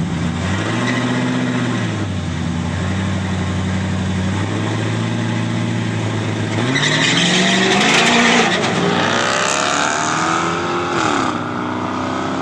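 Car engines at a drag-race start line, revving briefly and then held at steady raised revs. About seven seconds in they launch hard: engine pitch climbs with a loud rush of noise, which is loudest just after the launch, and the pitch drops once near the end.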